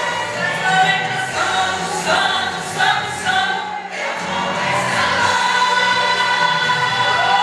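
A gospel vocal group singing together, holding long sustained notes, with a brief dip about four seconds in before the singing swells again.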